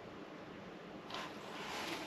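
Handling noise from a portable 12-volt refrigerator in a padded cover: a soft scraping rustle begins about a second in and lasts about a second as the unit is pushed into place.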